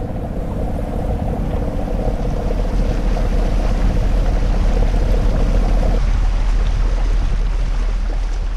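Westerly Fulmar sailing yacht's inboard engine running steadily as the boat motors along, a continuous low rumble mixed with water and wind noise. A higher hum in the drone drops away about six seconds in.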